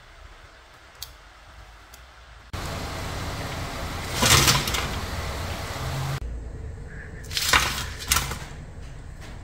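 Crisp fried banana fritters sliding and tumbling off a perforated metal skimmer onto a paper-lined baking tray, in rustling, scraping surges about four seconds in and twice more near the end. Before that, only a faint hiss with two light clicks.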